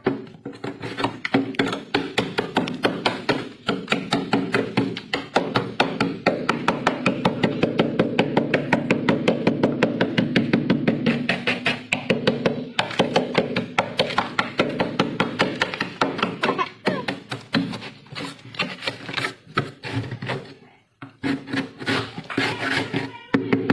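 Metal scraper blade scraping thick frost off a freezer's walls in quick, rasping strokes, about five a second, with a short break about 21 seconds in.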